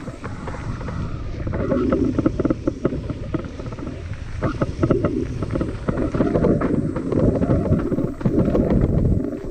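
Mountain bike riding down a rough dirt trail: tyres rumbling over the ground, with constant clattering and knocking from the bike as it hits rocks and roots, and wind buffeting the microphone.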